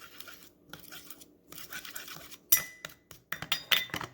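Kitchen utensils and dishes being handled: soft scraping and rustling, then a sharp, ringing clink about two and a half seconds in, followed by a few quick clicks and clinks.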